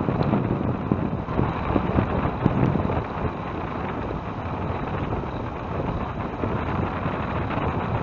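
Wind buffeting the microphone of a bicycle-mounted camera while riding along, with road noise from the bike underneath; the gusts are strongest in the first three seconds.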